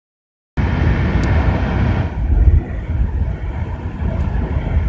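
A moving car's road and wind noise heard from inside: a loud, low rumble with rushing air that cuts in abruptly about half a second in and eases a little about two and a half seconds in.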